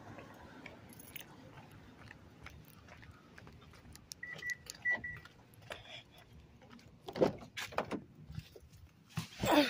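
Car keys jangling and a car door being handled and opened, with clicks and knocks in the last few seconds, loudest near the end. About four seconds in, three short high electronic beeps sound.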